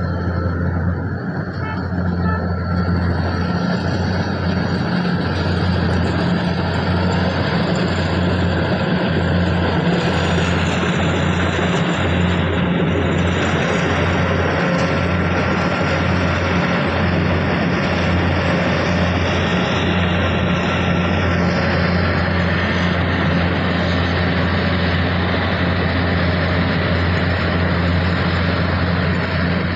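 Kubota DC104 combine harvester's diesel engine running steadily under load, with the continuous rattle and rush of the harvesting and threshing machinery.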